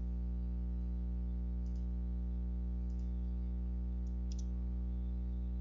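A few faint computer mouse clicks, as objects are picked on screen, over a steady low hum with many overtones that is the loudest thing throughout.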